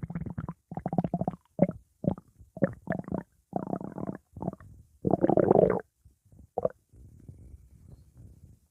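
Stomach growling and gurgling: a string of short, rough gurgles, the longest and loudest about five seconds in, trailing off into faint rumbles near the end.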